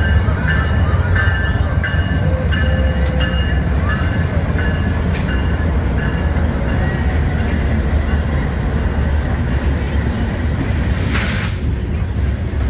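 A train rolling past with a steady low rumble, with faint high wheel squeals in the first few seconds. A short sharp hiss comes near the end.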